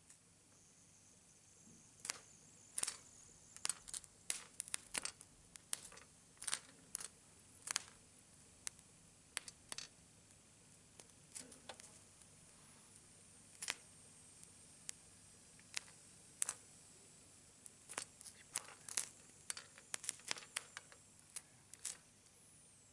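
Faint, irregular crackling of sparks: sharp pops and clicks coming in clusters with short quiet gaps between them.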